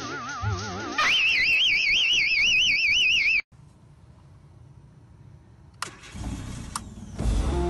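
Car alarm siren warbling up and down in pitch about three times a second for a little over two seconds, then cutting off suddenly. Two soft clicks follow in the quiet.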